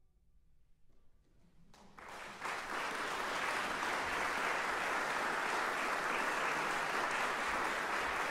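Audience applause that breaks out about two seconds in after a brief hush, then continues steadily.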